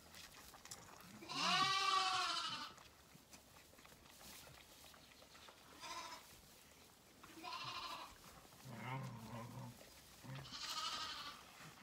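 Lambs bleating: one long, loud bleat with a wavering pitch a little over a second in, then a few shorter, fainter bleats later, the last near the end.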